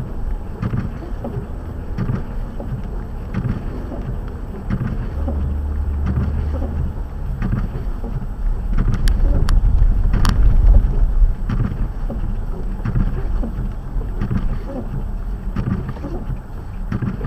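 A car being driven through snow, heard from inside the cabin: a steady low engine and road rumble with a soft knock about every second and a half. The rumble swells about ten seconds in, with a few sharp clicks.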